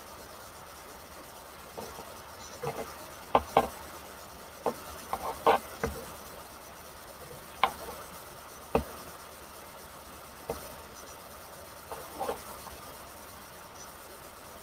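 Scattered light clicks and rustles of handling close to the microphone, about a dozen over ten seconds, as long hair is handled and moved right in front of it.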